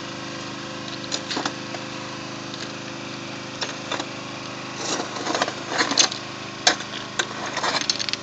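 A steady engine-like drone, with scattered metallic clicks and scrapes that come thickest from about five seconds in.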